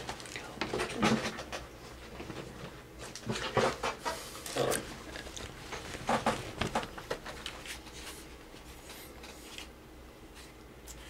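A dog making short, separate sounds several times over the first seven seconds or so, then growing quieter toward the end.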